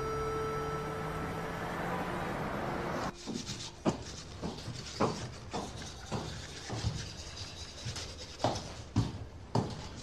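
A steady background hum with the last held notes of music fading out; about three seconds in, it gives way to a toothbrush scrubbing teeth in quick, uneven strokes, about one or two a second.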